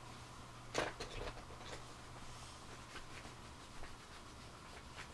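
Faint, scratchy strokes of a dry angled paintbrush on a ceramic piece as underglaze is dry-brushed on, with one louder brief knock about a second in and a few soft ticks after.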